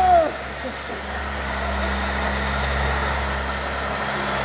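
Road traffic on the street: a motor vehicle's low engine rumble and tyre noise, growing a little louder after the first second or so.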